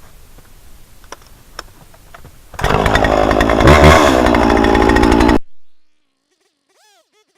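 Poulan Pro 505 two-stroke chainsaw running loud at high revs for about three seconds. It comes in suddenly about two and a half seconds in and cuts off abruptly, after a few faint clicks and rustles.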